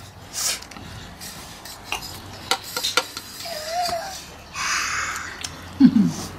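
Forks clicking and scraping against metal plates as people eat momos, a few sharp clinks about two to three seconds in.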